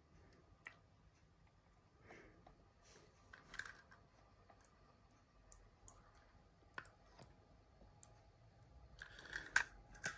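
Faint, irregular small clicks and taps of die-cast toy cars and a plastic toy spray nozzle being handled, with a little soft rustling.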